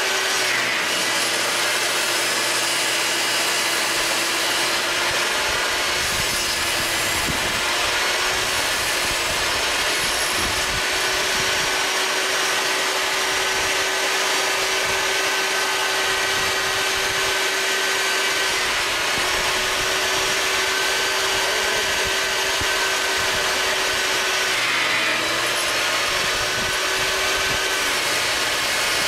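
Skil TS6307-00 10-inch jobsite table saw fitted with a 40-tooth Hercules blade running and cutting through a full sheet of 3/4-inch MDF: a steady motor whine under loud cutting noise. The pitch sags briefly three times, about half a second in, around 18 seconds and around 25 seconds, as the blade takes more load from the feed.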